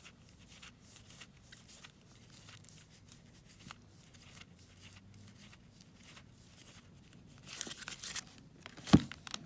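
Sleeved trading cards rustling and clicking faintly as they are flipped through by hand. The plastic crinkles louder near the end, and there is a single sharp thump just before the end.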